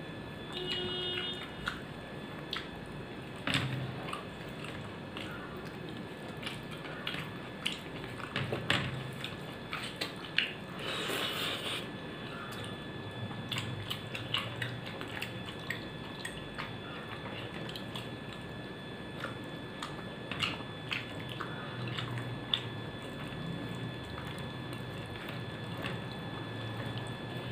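A person eating rice and curry by hand: chewing and wet mouth sounds, with scattered short clicks and smacks as fingers mix food on a steel plate, and one longer hiss about eleven seconds in.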